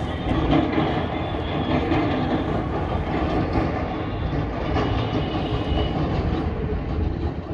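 Steady rumble and rattle of a moving vehicle.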